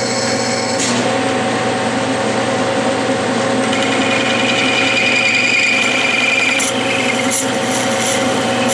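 Clausing metal lathe running with a steady motor and gear hum as a cutoff tool is hand-fed into spinning brass stock to part it off. A high whine joins about four seconds in and fades about three seconds later.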